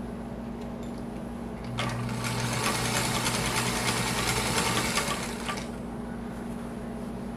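Vintage Singer sewing machine with a belt-driven motor stitching through the layers of a quilt: a steady low hum, then about two seconds in it speeds up into a fast, even run of stitching for a few seconds before easing back to the hum.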